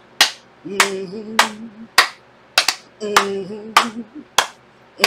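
A woman clapping her hands in a steady beat, about nine claps, while singing a low held tune in two long phrases between them.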